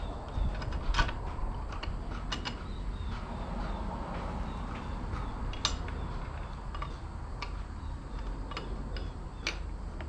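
Wrench working a tight nut on a sawmill's chain-drive sprocket: scattered metal clicks and clanks, about half a dozen over several seconds, as the nut is worked loose.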